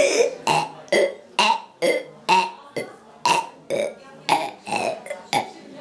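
A young girl burping over and over: a quick string of about a dozen short burps, roughly two a second.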